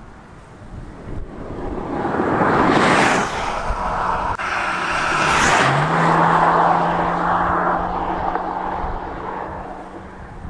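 2025 BMW M5 Touring's twin-turbo V8 hybrid drivetrain driving past twice, each pass swelling loud and falling away. After the second pass a steady engine note holds and slowly fades.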